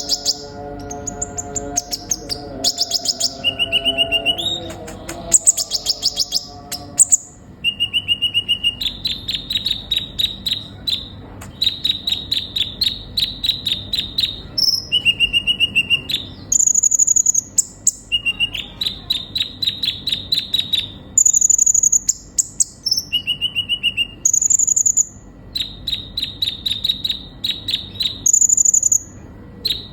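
Kolibri ninja sunbird singing continuously: fast trills of sharp chattering notes alternating with short, thin, very high whistles, repeated phrase after phrase.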